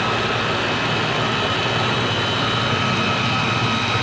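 Clatronic electric mini chopper running at one steady speed, its motor giving an even, high whine as the blades mix liquid chocolate cake batter in the glass bowl. It is kept running by pressing down on the top of the motor unit.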